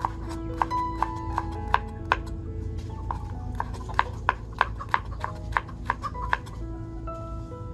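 Background music of short plucked-string notes ringing out one after another, with irregular sharp knocks mixed in throughout.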